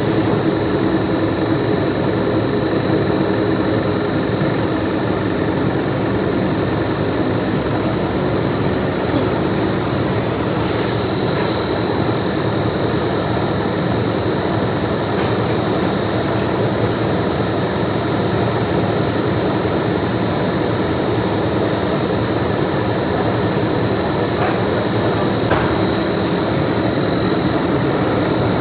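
Factory machinery running steadily, a continuous mechanical noise with a steady high-pitched whine over a low hum. A brief hiss comes about eleven seconds in.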